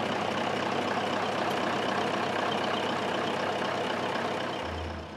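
Hino V8 diesel truck engine, mounted open at the stern of a wooden longtail boat, running steadily.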